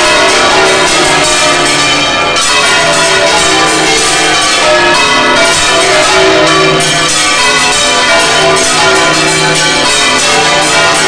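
Several large church bells swung by hand full circle (volteo manual), heard from inside the bell chamber. They strike over and over in a loud, dense clamour of many overlapping pitches, with no pause.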